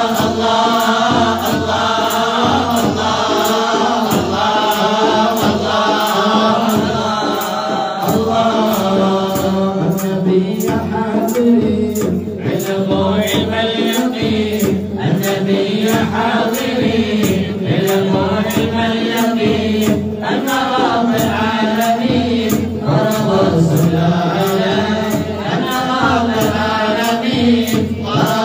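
A group of men chanting a Mawlid devotional hymn in praise of the Prophet together, the melody rising and falling without a break.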